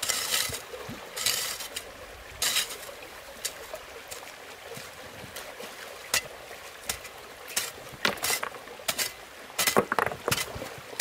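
Irregular splashes and sloshes of water over the steady flow of a shallow stream.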